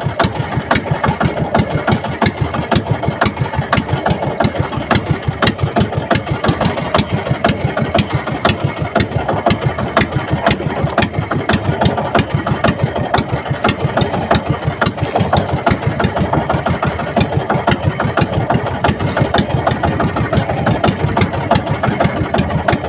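Small boat engine running steadily with a rapid, even beat.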